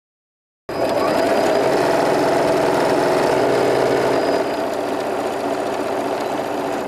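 Janome sewing machine running at a steady speed, stitching a seam along a folded fabric tie; the machine's running cuts in abruptly just under a second in.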